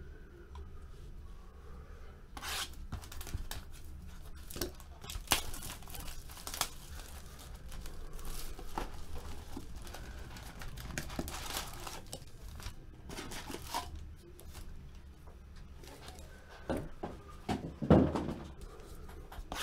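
Plastic wrapping being torn open and crinkled by hand while opening sealed boxes of football trading cards: repeated short rips and rustles, the loudest near the end.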